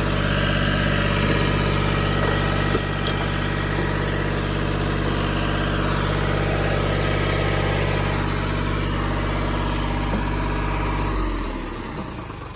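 Engine of a compact construction machine idling steadily, then shut off near the end, its pitch sagging as it winds down.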